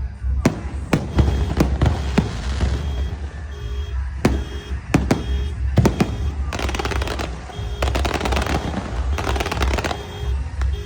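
Aerial fireworks going off: a scatter of sharp single bangs, then a dense crackling from about six and a half to ten seconds in.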